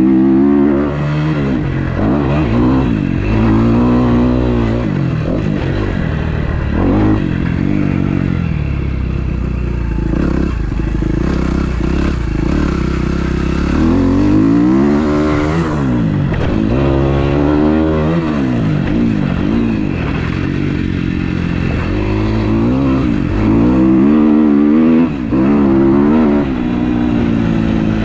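Freshly rebuilt 2012 Kawasaki KX250F's single-cylinder four-stroke engine being ridden hard, revving up and dropping back over and over as the throttle is opened and closed through the gears.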